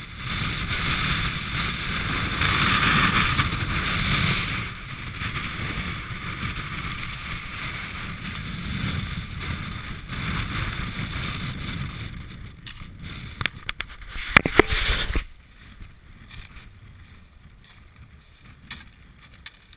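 Gale-force wind above treeline buffeting the camera microphone, a loud gusty roar and rumble that eases after the first few seconds. A run of sharp knocks and rattles comes about thirteen to fifteen seconds in, then the sound drops abruptly to much fainter wind.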